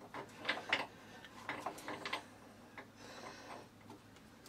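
Light metallic clicks and small knocks from the tailstock clamp nut and rod under a Boxford lathe bed being adjusted by hand, with a brief scraping sound about three seconds in.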